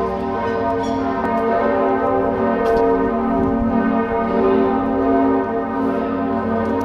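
Church bells pealing, several bells ringing together in a steady wash of overlapping tones.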